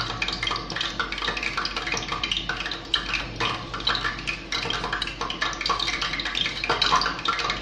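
Fingertips pressing and patting a skewered chicken sempol into dry breadcrumbs on a plate, making an irregular crackling rustle of crumbs.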